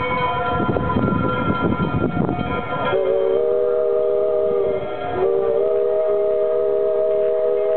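The 1905 steam locomotive No. 25 rumbles along the track, then its steam whistle blows about three seconds in. It gives a loud chord of several notes held steady, a short break, and a second long blast.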